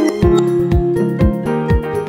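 Background music with a steady drum beat, about two beats a second, under held synth-like notes.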